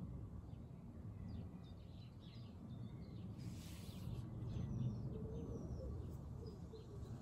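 Garden birds chirping in many short calls, with a few brief whistled glides, over a low steady rumble. A brief rustling hiss comes about three and a half seconds in.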